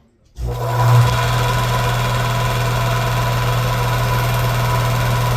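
Electric power tool switching on about half a second in and then running loudly at a steady speed, with a constant low hum and a steady whine.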